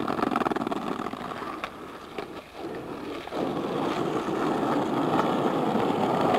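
Skateboard wheels rolling on asphalt: a steady rumble that drops a little about two seconds in and builds again, with a few light clicks.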